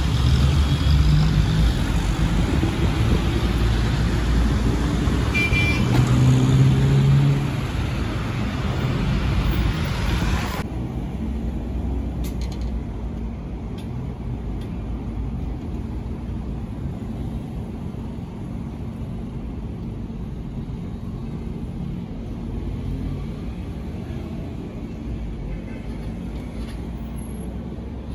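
Steady low engine rumble, louder for the first ten seconds, with a sudden drop about ten and a half seconds in to a quieter, steadier low rumble.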